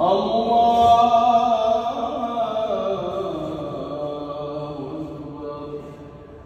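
A male imam's voice chanting one long drawn-out phrase of the prayer over a mosque loudspeaker system, echoing. The held note sinks slowly in pitch and fades away over several seconds.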